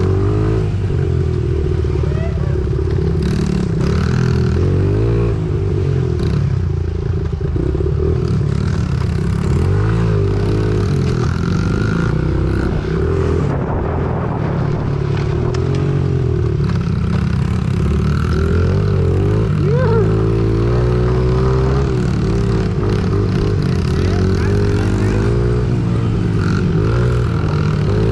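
Small four-stroke single-cylinder engine of a Honda mini bike being ridden, revving up and down every few seconds as the throttle opens and closes.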